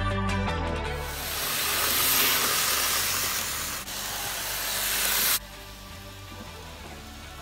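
Background guitar music fading out, then a loud steady hiss that stops abruptly about five and a half seconds in, leaving faint music.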